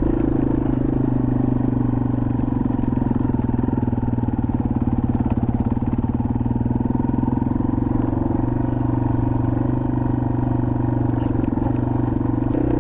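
2021 Yamaha TW200's single-cylinder four-stroke engine running at a steady pace under way, with a low, even drone and little change in pitch.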